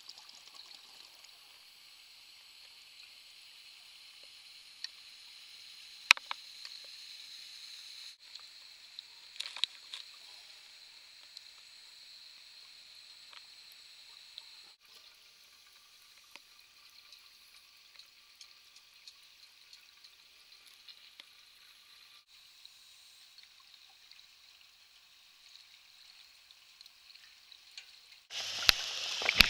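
Faint underwater ambience: a steady hiss with a few scattered clicks. Near the end, much louder sloshing and splashing water starts.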